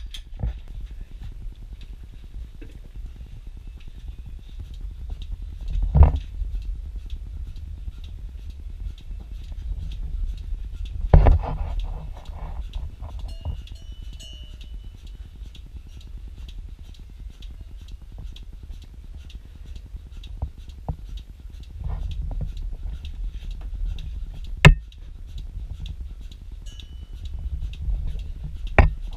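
Milking machine running in a cow barn: a steady low vacuum hum with the pulsator's fast, even ticking. A few louder knocks come through, the sharpest near the end.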